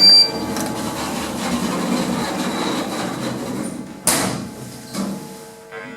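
Lift doors sliding with a steady rush, then shutting with a sharp knock about four seconds in, followed by smaller knocks.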